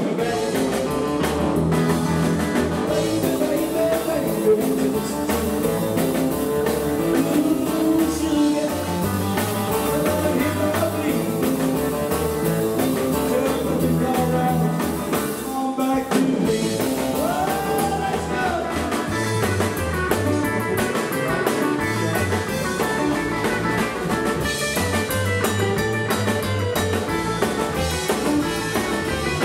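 Rockabilly band playing live: electric lead guitar over upright double bass and drum kit, with a brief break about halfway through.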